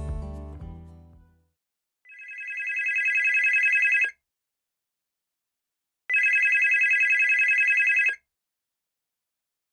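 Background music fades out, then a telephone rings twice, each ring about two seconds long with a fast warble and a silent gap of about two seconds between them: an outgoing call ringing before voicemail answers.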